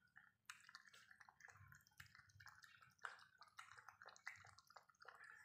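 A puppy eating soft, wet rice from a plastic tub: faint, quick wet smacking and lapping clicks, starting about half a second in.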